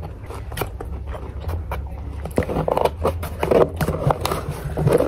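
Chewing a mouthful, with scattered sharp clicks and scrapes from a plastic fork and the lid of a takeout box being folded shut.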